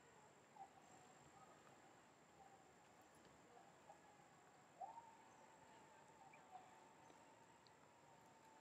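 Near silence: faint outdoor ambience with a steady high-pitched insect drone and a few brief faint calls, the clearest about five seconds in.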